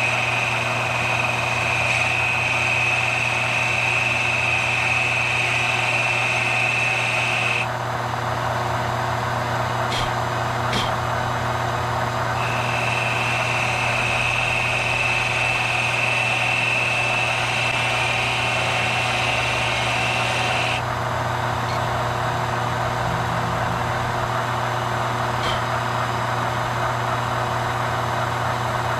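Benchtop metal lathe running steadily with a low hum as a cutter trims a layered leather pool cue tip. A high whine comes in twice, each time for about eight seconds, and cuts off suddenly, with a couple of light clicks in between.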